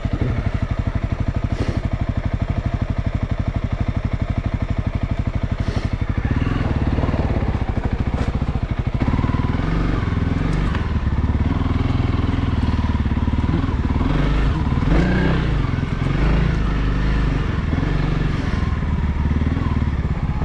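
Honda CRF300L's single-cylinder four-stroke engine running under load. From about six seconds in it gets louder and uneven, revving up and down as the throttle is worked.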